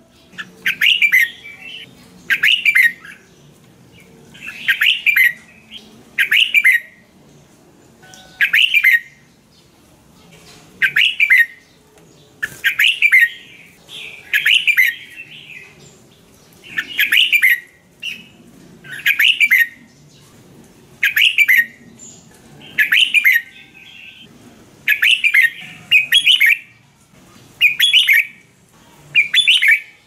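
Red-whiskered bulbul singing a string of short, bright phrases, one every second or two.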